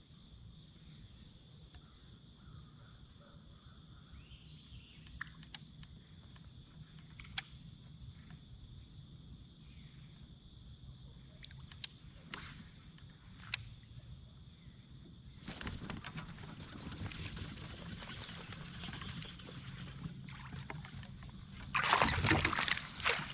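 Steady high-pitched insect drone over quiet water, with a few light clicks of fishing tackle. About two-thirds in, a rising rush of water noise begins. Near the end comes a loud burst of splashing and thrashing as a hooked bass is fought to the kayak.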